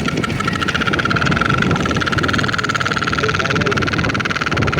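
A toy pipi trumpet fitted into a motorcycle's exhaust silencer, blown by the running engine's exhaust into a continuous buzzing, croak-like drone at one steady pitch, made of rapid even pulses.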